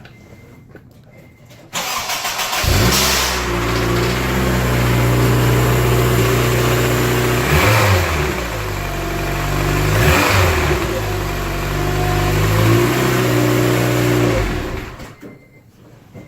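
Turbocharged Honda K20 engine in an Acura RSX cranking over about two seconds in and catching. It runs with two brief swings in engine speed, then shuts off near the end. The engine has a knocking noise that the mechanic suspects comes from a damaged piston, after it was driven with a larger turbo before a retune.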